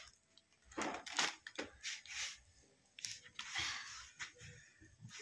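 Plastic snack packet crinkling: short scattered rustles and crackles, several in the space of a few seconds.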